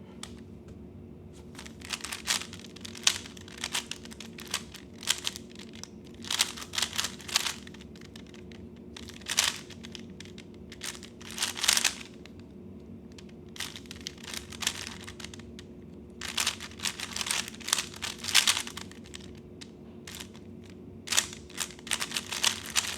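3x3 speed cube being turned fast in a timed solve: rapid bursts of plastic clicking and clacking, broken by short pauses between bursts. A faint steady hum runs underneath.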